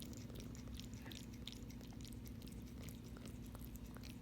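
A cat eating noisily, its chewing making quick, irregular crunching clicks over a steady low hum.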